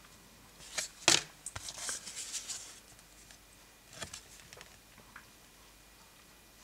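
Light clicks and rustles of stiff printed art cards being handled and swapped between the hands, in a short cluster about a second in and another around four seconds in.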